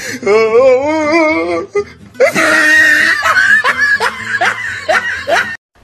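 Loud laughter with music: first a wavering, warbling voice, then from about two seconds in a hearty laugh in quick pulses that cuts off suddenly near the end.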